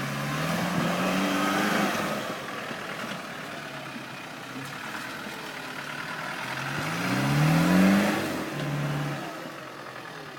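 An off-road 4x4's engine revving in two rising surges, one near the start and a louder one around seven seconds in, before easing off.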